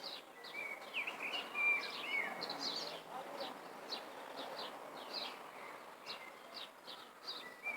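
Several birds chirping with many short, quick, falling notes and a few brief held whistles, over a steady background hiss.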